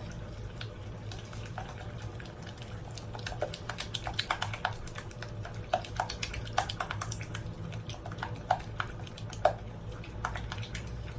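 Yogurt and spice marinade being mixed by hand in a bowl: the utensil clicks and scrapes against the bowl in irregular strokes, over a steady low hum.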